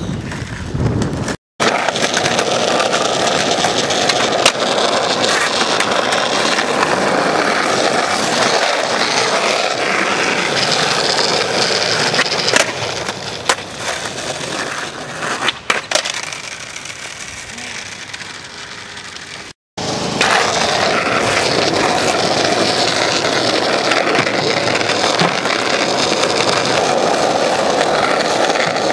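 Skateboard wheels rolling on asphalt, a steady rough grinding noise, with a few sharp clacks of the board. The sound cuts out completely twice for an instant.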